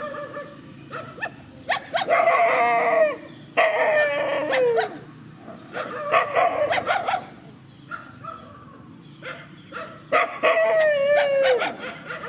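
Dogs barking and howling at each other: four drawn-out calls of about a second each, dropping in pitch at the end, with short sharp sounds in between.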